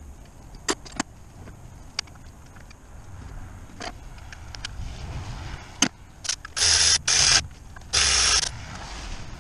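Several sharp metallic clicks of tools on the engine, then four short, loud hissing bursts, each about half a second long, near the end.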